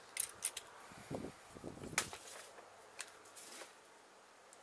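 A few sharp clicks and a muffled knock from handling a quick-release brush adapter (Aqua Dapter Flip Fast) as a brush head is taken off and fitted: two quick clicks near the start, a dull rustle and knock around one to two seconds in, and single clicks about two and three seconds in.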